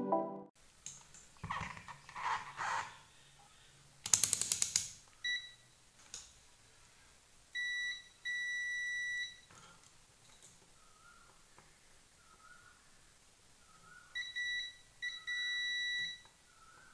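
A UNI-T digital multimeter's continuity buzzer giving steady high beeps, some short and some about a second long, each time the probes bridge a connected point on the amplifier circuit board. Tool handling noise and a quick run of clicks come before the beeps.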